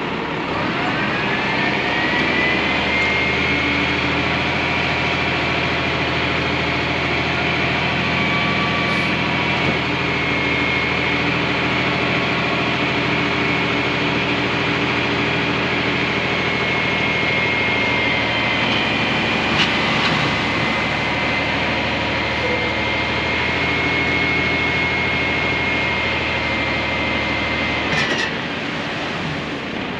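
Heavy diesel snow-removal vehicle running under load: a steady low engine hum with a high whine that winds up over the first second or two, holds, and stops about two seconds before the end. A couple of sharp clicks sit in the middle and near the end.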